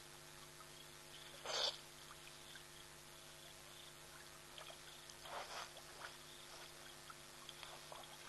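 An elephant investigating a trail camera at close range: a few short noisy bursts of contact and breath, the loudest about one and a half seconds in and another cluster about five seconds in, with light ticks and knocks between.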